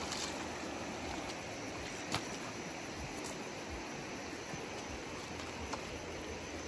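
Steady rush of river water flowing over rocks, with a few light clicks and one sharper tap about two seconds in.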